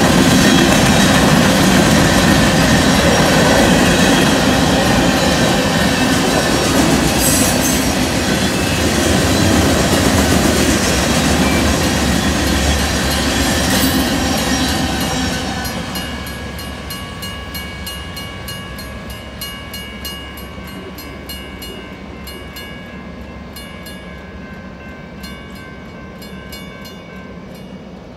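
A freight train of covered hoppers and tank cars rolls through a grade crossing with heavy, steady wheel and rail noise. About halfway through the last car clears and the noise drops away, leaving the crossing's warning bell ringing in quick, even strokes until near the end.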